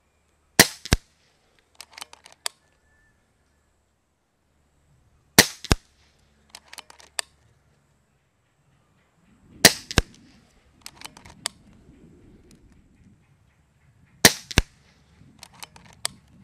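Kral Puncher Breaker .22 PCP bullpup air rifle fired four times, about four and a half seconds apart. Each shot is a sharp crack followed a moment later by a second smaller click, then a quick run of small clicks as the action is cycled for the next pellet. A low rumble of wind on the microphone comes in from about halfway.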